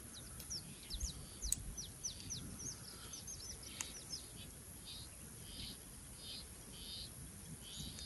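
Birds chirping faintly: quick, repeated high chirps that sweep down in pitch, giving way about halfway through to a run of short buzzy calls, with a couple of faint clicks.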